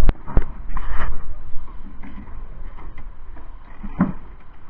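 Sharp knocks of construction work on a building slab: two loud knocks at the start and another about four seconds in, with wind rumble on the microphone.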